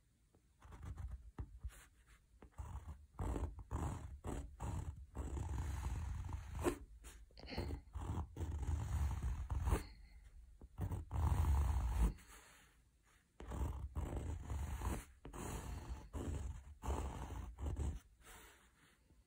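White pencil scratching across a stretched canvas in quick sketching strokes: a run of short rasps, each under a second, with a longer pause about two-thirds of the way through.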